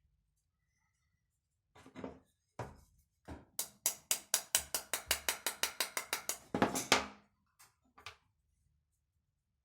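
A few separate sharp knocks, then a fast even run of knocks at about five a second for some three seconds, then two last knocks: hand work on fastening a wooden bird perch.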